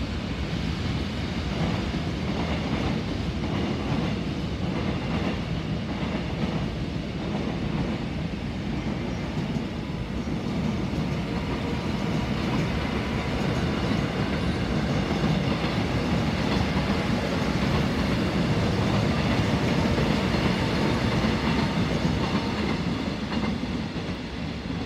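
Electric commuter train running past on the adjacent tracks, with the steady rumble of its wheels on the rails and a clickety-clack over the rail joints. It grows louder in the second half.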